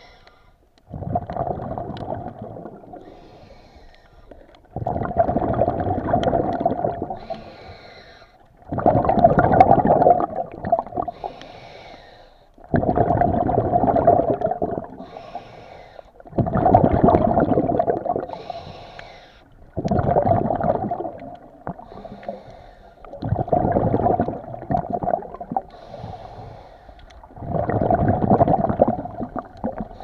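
Scuba regulator breathing underwater: a rush of exhaled bubbles rumbles out about every four seconds, eight times over, with a fainter hiss of inhaling through the regulator between breaths.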